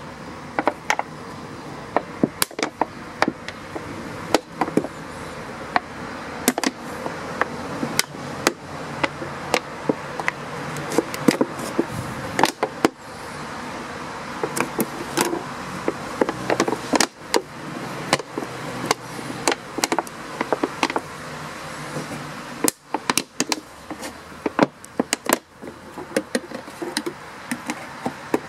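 Scissors snipping and cutting through a thin plastic 2-litre pop bottle, with many irregular sharp clicks and crackles from the plastic, over a steady background hum.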